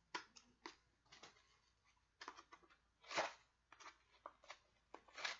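Scissors snipping and cutting through a cardboard shipping package: irregular short snips, with longer, louder cuts about three seconds in and again near the end.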